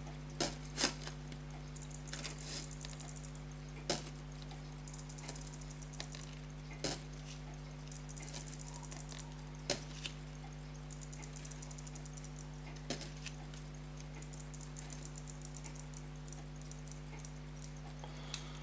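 Fusee pocket watch being wound with its key: a few small, sharp metallic clicks a few seconds apart as the chain is drawn onto the fusee cone, over a steady low electrical hum.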